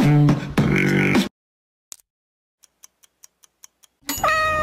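Edited soundtrack: a short burst of pitched, beatbox-like music cuts off after about a second. Then comes near silence with a run of about six light, evenly spaced clock-like ticks, about five a second, and near the end a short held tone that dips in pitch as it stops.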